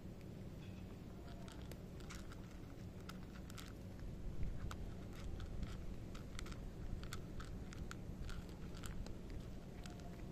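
A cat crunching dry kibble: a steady run of irregular sharp crunches as it chews.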